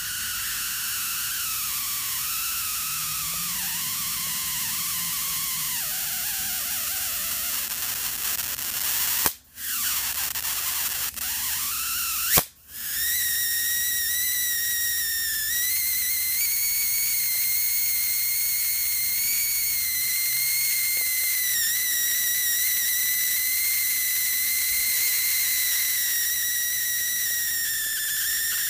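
CRT monitor flyback transformer running a high-voltage corona discharge: a steady hiss with a high whistling whine that wavers in pitch. It cuts out briefly twice, about nine and about twelve seconds in, each time just after a sharp click. It then comes back with a steadier, higher whine.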